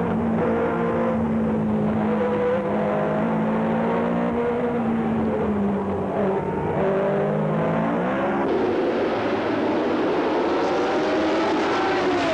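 Formula One race car engine heard from onboard, its note dropping and climbing again with gear changes. About eight seconds in it gives way to several race cars running together, with a falling pass-by note near the end.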